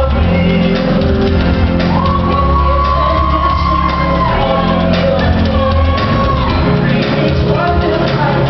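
Loud song played over a hall's sound system: a steady heavy bass beat with a voice holding long notes, twice.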